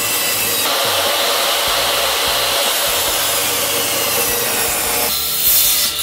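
Table saw running and cutting through a wooden board. The sound grows fuller about a second in as the blade takes the wood, and thins out near the end.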